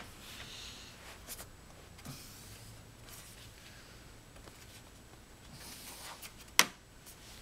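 Bottom cover of an Alienware 17 R4 laptop being pressed back on by hand: hands rub and slide over the panel, and a few sharp clicks sound as its tabs snap into place, the loudest near the end.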